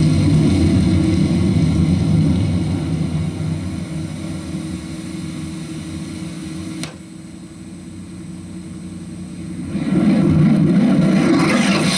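Jet aircraft passing: a loud low rumble that fades over the first seven seconds. A sharp click about seven seconds in drops it to a quieter stretch, and the rumble swells back loud about ten seconds in.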